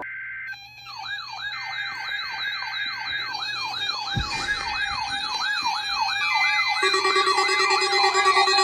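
Electronic siren yelping, its pitch swinging up and down about three times a second, with a second, faster warble higher up. Steady tones join it near the end.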